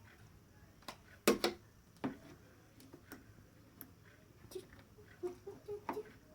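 Clicks and knocks of small objects being handled: a sharp double click a little over a second in, another about two seconds in, then scattered lighter ticks.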